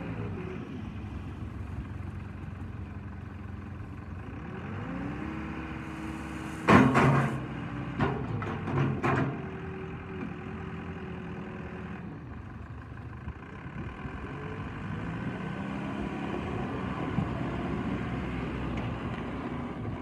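Komatsu WB140 backhoe loader's diesel engine running and revving up as the front loader bucket is raised over a gravel pile, with several loud clanks and rattles about a third of the way through as the bucket dumps. The engine then settles to steady running and picks up again as the machine moves off.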